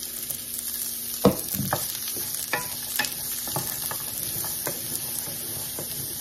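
Chopped zucchini and yellow squash sizzling in a hot buttered skillet as they are tipped in and stirred. A wooden spatula knocks and scrapes against the pan, the loudest knock coming about a second in.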